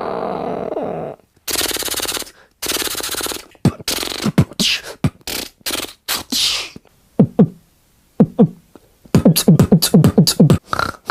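A man making a string of sound effects with his mouth and voice. A held, strained vocal sound cuts off about a second in, followed by two buzzing bursts, a series of quick falling swoops, and near the end a fast run of short clicks and chirps.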